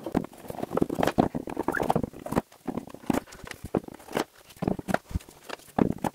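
Thin divider panels knocking and clattering against the sides and slots of a wooden drawer box as they are set in by hand and shifted, in quick irregular taps with short pauses between.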